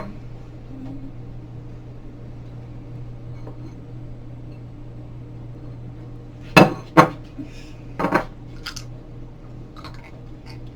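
Dishes and utensils clinking and knocking: three loud sharp knocks about two-thirds of the way in, then a few faint ticks, over a steady low hum.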